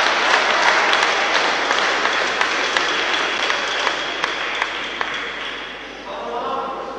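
Crowd applause in a sports hall dying away, with a few single claps standing out; a voice is heard briefly near the end.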